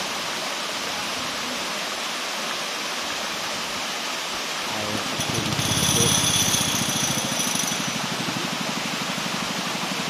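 Rushing water of the waterfall and fast river, a steady loud noise. About halfway in, a low, fast pulsing sound with a high whine joins it, loudest a second later, then carries on steadily under the water.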